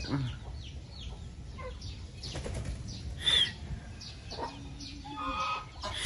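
Scattered calls from a small farmyard flock of geese and chickens: a sharp high call about three seconds in and a longer pitched call near five seconds, over a steady low rumble.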